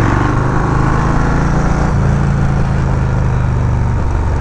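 Yamaha Road Star Warrior 1700 V-twin running steadily at a low cruising speed of about 40 mph, its note shifting slightly about two seconds in, with wind noise over it.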